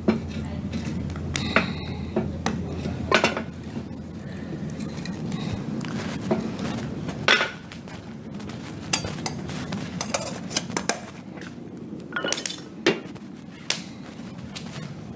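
Scattered sharp clinks and knocks, a dozen or so at uneven intervals, like objects being handled and set down in a room, over a low steady hum.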